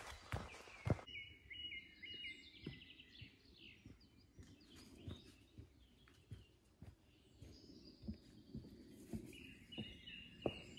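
Small birds chirping in runs of short repeated notes, with footsteps on a leaf-covered woodland path. The footsteps are loudest during the first second, then faint and scattered.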